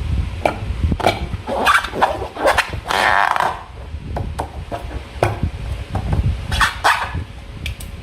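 Slime being squished and worked by hand with a balloon: a run of irregular wet clicks and squelches, with one longer squelch about three seconds in.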